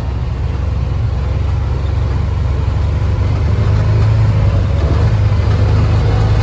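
UTV engine running at low speed, heard from inside the cab as it rolls along, a steady low drone that grows gradually a little louder.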